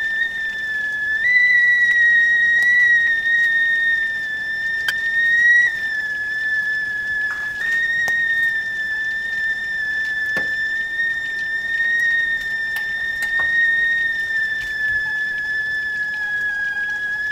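Stovetop tea kettle whistling at the boil: one high, steady whistle that rises slightly in pitch about a second in and drops back about six seconds in, wavering a little. A few faint ticks sound beneath it.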